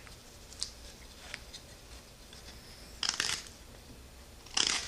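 A Mora hook knife cutting shavings out of the bowl of a green maple wood spoon: a few faint light scrapes, then two louder short scraping cuts, one about three seconds in and one near the end.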